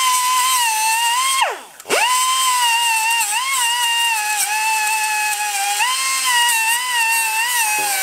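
Pneumatic cut-off tool whining at high speed as its abrasive wheel grinds through a steel drive chain, the pitch sagging and wavering under load. About a second and a half in it is let off and its whine falls away, then it spins straight back up and keeps cutting.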